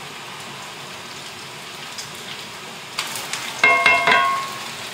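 Potatoes and bacon sizzling steadily in a cast-iron frying pan. About three seconds in they are stirred and turned, and metal tongs clink against the pan a few times with a short metallic ring.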